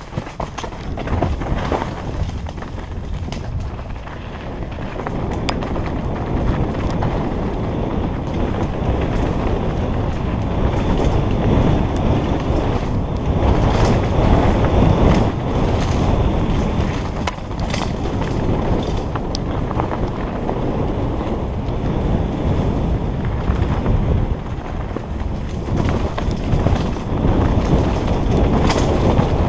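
Wind rushing over a helmet-mounted camera's microphone and bicycle tyres rolling over a dirt trail on a fast downhill mountain-bike descent. Frequent sharp clacks and rattles come from the bike over bumps. The rush grows louder a few seconds in as speed builds.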